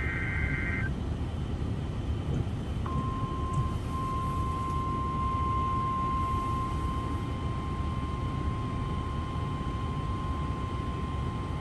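End of an Emergency Alert System data burst, a warbling two-tone squeal, cuts off about a second in. About three seconds in, a single steady high-pitched alert tone starts and holds for about nine seconds, signalling a tornado warning. A constant low rumbling noise runs underneath throughout.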